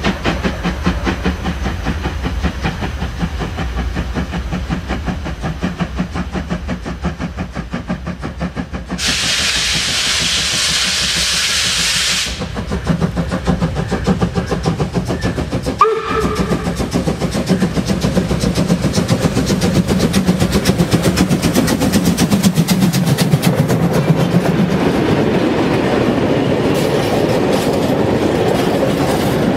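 Steam locomotive working hard at the head of a freight train, its exhaust beating rapidly and rhythmically, with a loud burst of steam hiss about nine seconds in. After a brief high tone and thump a few seconds later, the wagons roll past close by with rumbling and clattering wheels.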